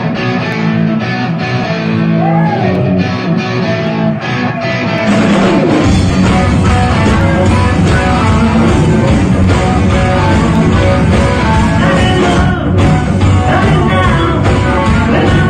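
Live blues-boogie rock band playing electric guitars and drums. The first five seconds or so are lighter guitar playing, then the drums and bass come in and the full band plays on loudly.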